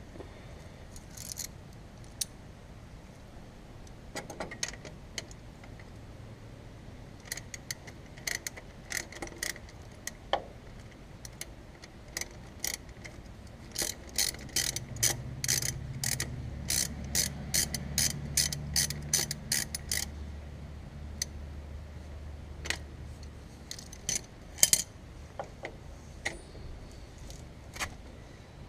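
Ratchet wrench clicking in short runs, with metal tool clinks, as the fuel pump's mounting bolts are run in against the engine block; the clicking is busiest midway through, over a low hum.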